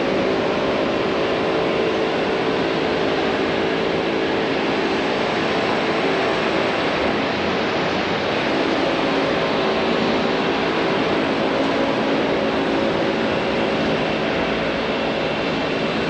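Steady traffic noise from cars idling and creeping along airport curbside drop-off lanes: a constant wash of engine and tyre noise with a faint steady hum, no single event standing out.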